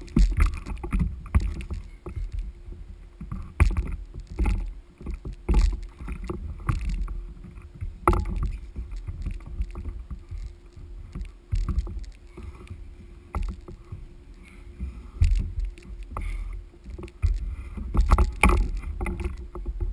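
Water splashing and sloshing against an ocean fishing kayak, with wind rumbling on the camera and scattered knocks and clunks.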